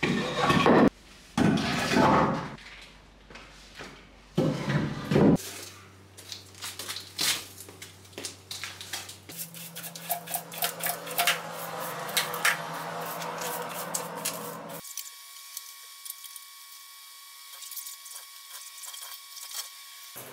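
Cut wooden logs being handled on a tiled floor: three loud bouts of knocking and scraping of wood on tile in the first five seconds. Then a broom sweeps sawdust across the tiles in quick, light scratchy strokes with small clicks. After about fifteen seconds only faint light clicks and rubbing remain over a low steady hum.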